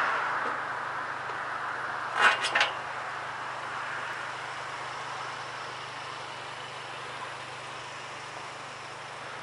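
A car passing on the road with a steady rushing noise that slowly fades away. A quick cluster of three sharp clicks a little over two seconds in.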